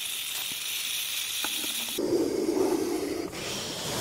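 Snake hissing. A steady, high hiss gives way about two seconds in to a lower, fuller hiss, which changes again a little after three seconds and grows louder toward the end.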